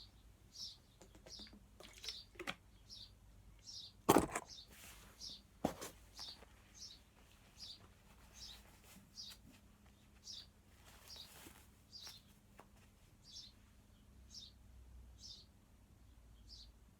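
Small birds nesting under garage eaves chirping, short high chirps repeated about one and a half times a second, with two sharp knocks about four and six seconds in.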